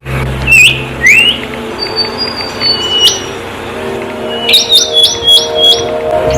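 Wild birds calling: two short upward-sweeping chirps, then a held high whistled note and a brief note, then a quick run of about six repeated chirps near the end.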